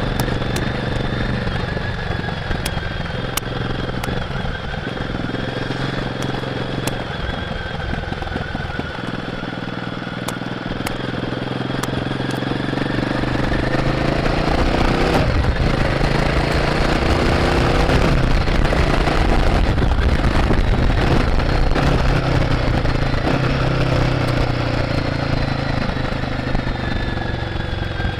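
Royal Enfield Guerrilla 450's single-cylinder engine and stock exhaust, heard from the rider's seat while riding. The engine runs steadily at first. About halfway through it revs up and pulls harder, getting louder, then eases off near the end.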